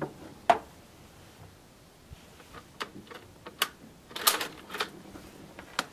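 Scattered sharp metallic clicks and clacks from handling the action of a Carcano M38 short rifle as a clip of cartridges is loaded, with a quick cluster of clicks a little past the middle.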